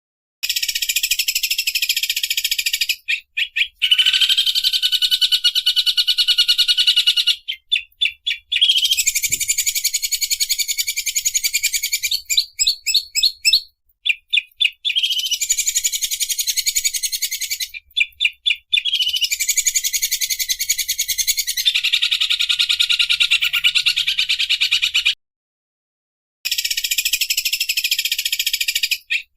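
Cucak ijo (greater green leafbird) singing long, very rapid rattling trills of several seconds each, the fast "sewing machine" style, broken by quick bursts of clipped separate notes and a couple of brief pauses.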